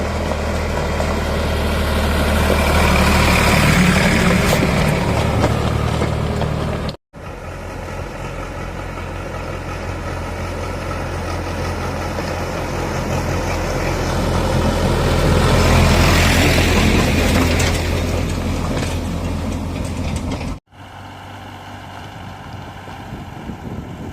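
Heavy diesel engine running steadily with a deep hum, swelling louder twice. The sound breaks off abruptly twice and resumes at once.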